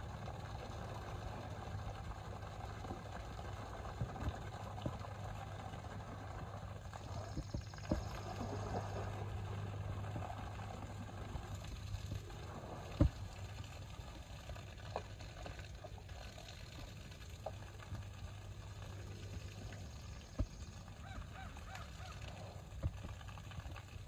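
A small waterfall pours steadily into a pond while a Syrian brown bear sits and moves in the water under the falling stream, with scattered sharp splashes and knocks, the loudest about halfway through.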